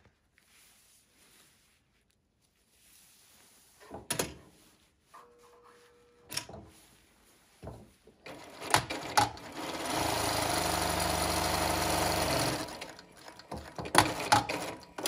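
Dürkopp Adler industrial zigzag sewing machine running steadily for about three seconds, starting about ten seconds in, as it sews a seam in light fabric. Scattered clicks and knocks come before the run and again near the end.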